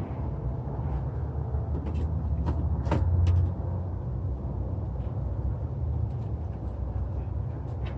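Steady low rumble like a vehicle engine, with scattered light clicks and knocks; the rumble swells briefly about three seconds in.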